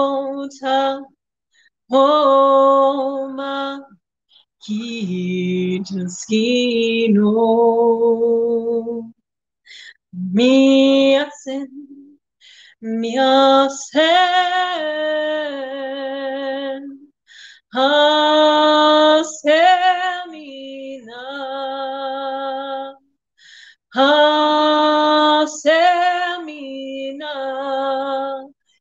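A woman singing a traditional Indigenous song unaccompanied, in phrases a few seconds long with short breaths between them. The notes are long and held, and several of them slide up or down in pitch.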